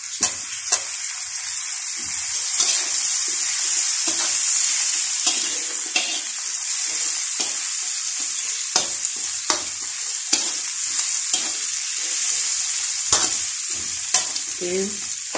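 Pumpkin cubes, onion and lemongrass sizzling in hot oil in a wok, with a steady high hiss, while a metal spatula stirring them scrapes and clicks against the pan at irregular intervals.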